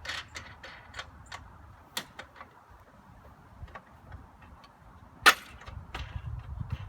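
Scattered light metallic clicks and taps of hardware being worked loose by hand as the corner bolts come off a pontoon boat's frame, with one sharp, much louder clack about five seconds in.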